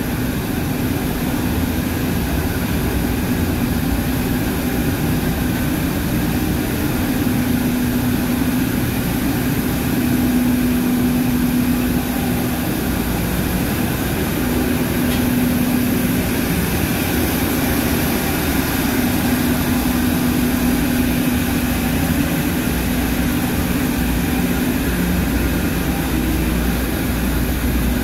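Loud, steady din of large diesel machinery running in a ship's engine room, with a droning tone that fades in and out every few seconds.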